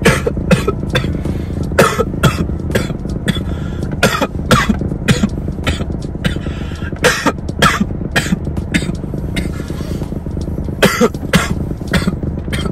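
Two people coughing in repeated, irregular fits after inhaling cannabis smoke in a closed car cabin, over a steady low hum of the car.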